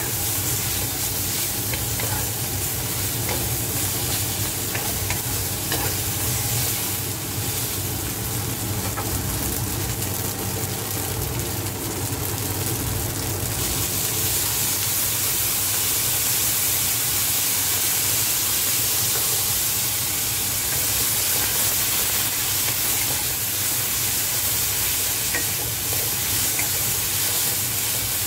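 Strips of celery, pork and tofu sizzling in a hot wok as they are stir-fried with a wooden spatula, with light scrapes and taps. About halfway through, cooking wine is poured in and the sizzle turns brighter and a little louder.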